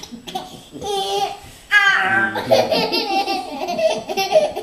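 A small child laughing in repeated high-pitched bursts.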